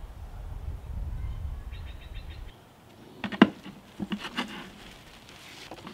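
Low rumble, then a handful of sharp knocks and clatter, the loudest about three and a half seconds in: a black plastic nursery pot being handled and set down inside a stone urn planter.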